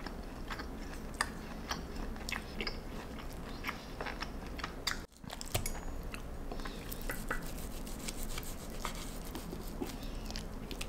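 A person chewing and biting food close to the microphone, with many small irregular clicks and taps. The sound drops out for an instant about five seconds in.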